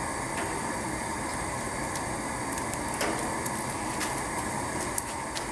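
Steady drone of the burnout kiln's burner running, with a few light clicks.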